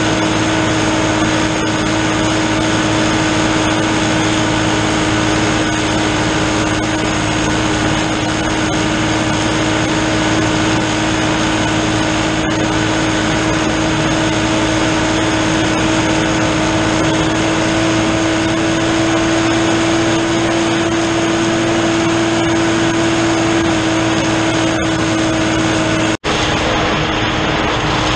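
New Holland TN70 tractor's diesel engine running steadily under load, driving a PTO-powered drum mower through standing hay: an even drone at one constant pitch. The sound breaks off for an instant near the end.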